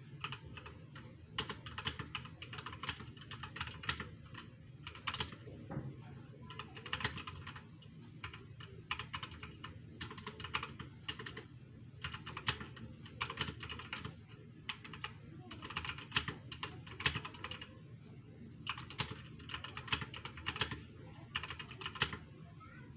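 Rapid typing on a computer keyboard: quick runs of key clicks in bursts about a second long, broken by short pauses, over a faint steady low hum.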